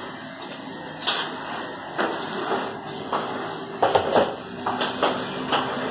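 Corded electric dog clipper with a No. 7 blade running steadily as it shears a cocker spaniel's coat, with several short clicks and knocks scattered through.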